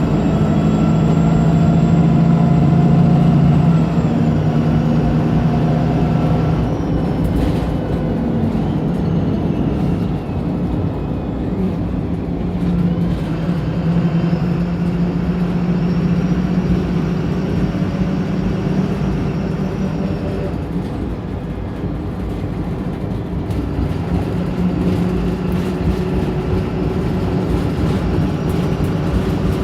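Diesel engine of a Wright Pulsar single-decker bus, heard on board, pulling hard under acceleration. Its note eases off a couple of times as the automatic gearbox shifts or the throttle lifts, then picks up again.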